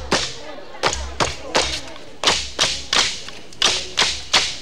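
Large calabash struck with the hands as a drum, deep thumps mixed with sharper slaps in a quick, steady rhythm of about two to three strokes a second.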